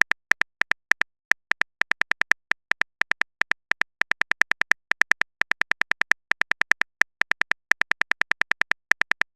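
Simulated phone keyboard typing sound effect from a texting-story app: a long run of short, identical key clicks, about five a second, in uneven bursts with brief pauses between them.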